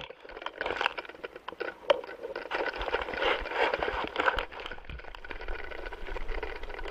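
Irregular rustling and scraping with scattered sharp clicks, picked up by a GoPro camera on a spacewalking astronaut's suit as he moves.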